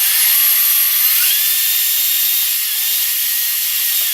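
Electric drill boring freehand through a block of wood: a steady, loud hiss of the bit cutting, with a faint motor whine that rises a little in pitch about a second in.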